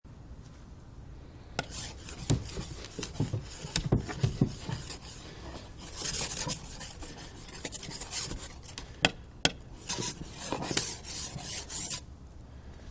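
Snow being scraped off a car's side window glass: repeated, irregular scraping strokes that begin about a second and a half in and stop near the end.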